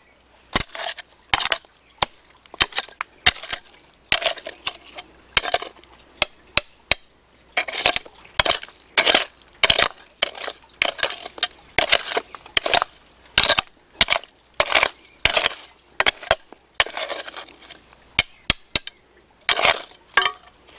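Small hand hoe chopping and scraping into damp, stony soil: a run of short, irregular strikes and scrapes, one or two a second.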